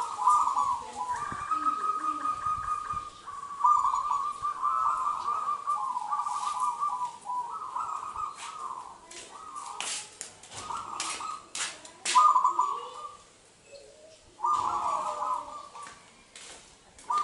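Zebra dove (local perkutut) singing: a run of rolling, trilled coo phrases, several in a row with short pauses between them. Sharp clicks come in between about six and twelve seconds in.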